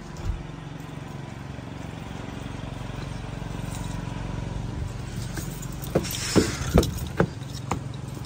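Automatic standby generator running, a steady low engine hum, with rain falling. A few sharp knocks in quick succession about six to seven and a half seconds in.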